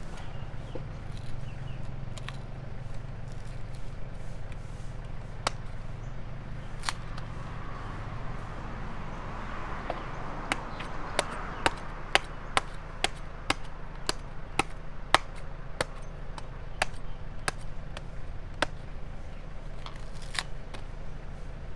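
Knife chopping into palmyra palm fruit: a couple of single chops, then from about halfway a quick run of sharp chops, roughly two a second, over a steady low hum.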